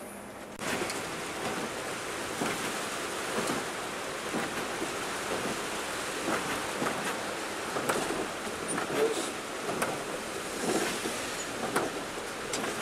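Heavy rain pattering on the bus's windshield and body, heard from inside the cab, with many sharp drop hits; it sets in suddenly about half a second in and stays steady after that.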